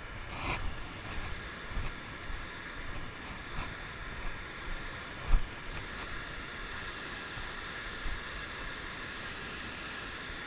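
Steady outdoor rushing hiss with irregular low rumbles on a body-worn camera's microphone, and a single sharp knock about five seconds in.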